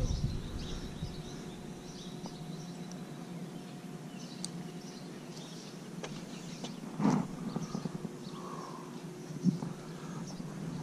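Outdoor ambience: faint bird calls over a steady low hum, broken by two short thumps about seven and nine and a half seconds in.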